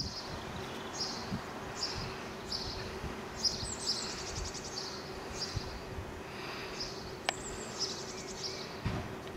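Small birds chirping: short high notes repeated roughly every half-second to second, with a couple of quick trills, over a steady low hum and a light rumble. A single sharp click about seven seconds in.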